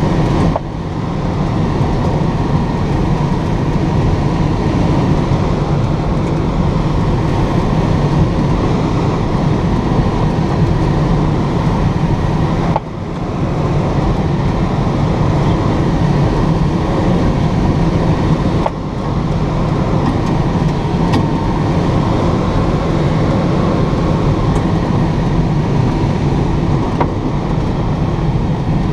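Steady rush of airflow over the canopy of a Schleicher K8 glider in flight, heard from inside the cockpit. The loud rushing drops suddenly three times and builds back within a second or so.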